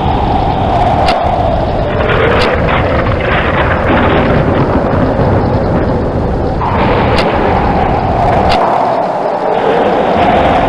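Heavy rain with rolling thunder. The thunder swells about two seconds in and again past the middle, with a few sharp cracks.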